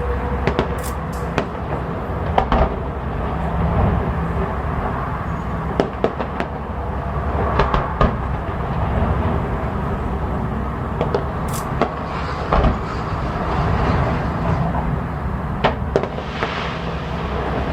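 Fireworks bursting overhead: a dozen or so sharp bangs, some in quick pairs, scattered irregularly over a steady background rumble.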